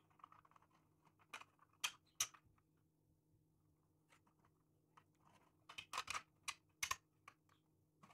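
Light clicks and taps of hard 3D-printed plastic parts being handled as a carbon landing-gear axle is pushed through a printed strut and fuselage section. There are a few sharp clicks about two seconds in and a quick run of them near the end.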